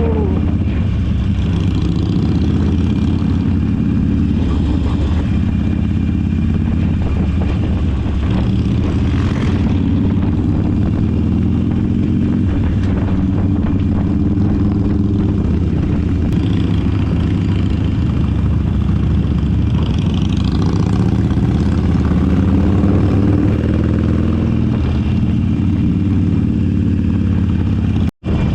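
Motorcycle engine running steadily while riding, holding a fairly even speed with small changes in pitch.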